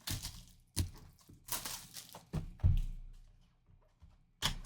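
Cellophane shrink wrap crinkling off a cardboard trading-card hobby box as the box is opened, in several short rustling bursts, with a dull thunk about two and a half seconds in.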